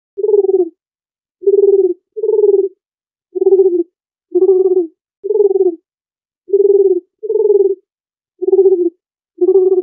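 Dove cooing: about ten short, low coos, some coming in close pairs, with dead silence between them.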